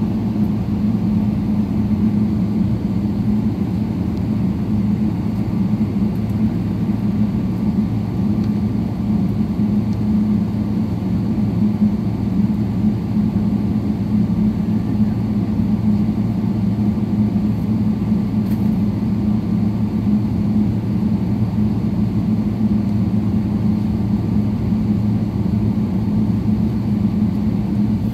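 Steady drone of a jet airliner's engines heard inside the passenger cabin as the plane taxis, a low, even hum.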